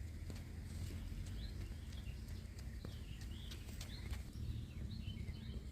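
Birds chirping in short calls that glide up and down in pitch, with scattered sharp clicks over a steady low rumble.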